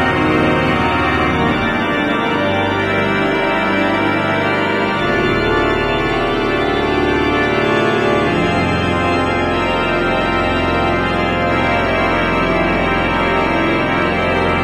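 Hugo Mayer pipe organ playing an improvisation: full, sustained chords over deep bass notes that change every few seconds.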